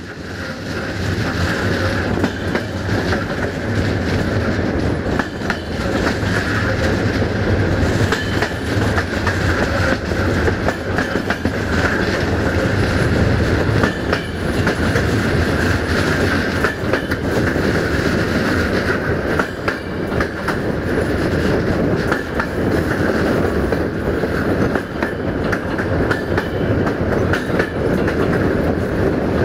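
Passenger train wheels rolling over jointed track, heard from a moving coach: a steady rumble with an irregular clickety-clack of wheels striking rail joints and points. It fades in over the first second.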